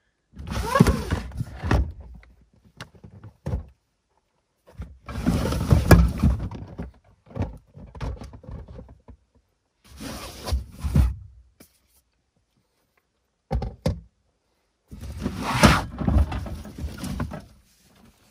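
Gear being shifted and lifted out of a car's cargo area: thuds, bumps and rustling in about five separate bursts.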